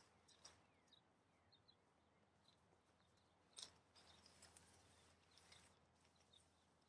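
Near silence, with faint rustles and soft clicks as a nylon dome tent and its poles are handled; the loudest rustle comes about three and a half seconds in.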